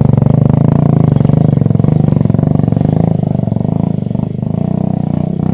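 Off-road motorcycle engine running close by at a steady low speed, a little quieter from about four seconds in.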